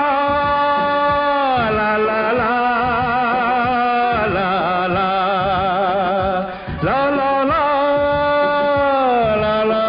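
Old Hindi film song playing, with long, wavering held notes that slide downward, and a brief dip about two-thirds of the way through.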